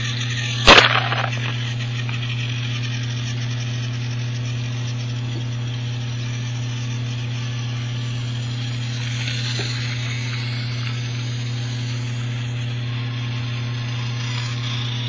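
Small battery-powered TOMY toy train motor and gearbox running with a steady electric hum. A single sharp plastic knock just under a second in.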